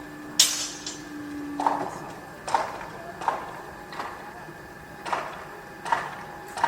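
Construction-site noise: a loud knock about half a second in, then a series of knocks roughly once a second, irregularly spaced and each ringing briefly like metal being struck, over a steady background with a faint high tone.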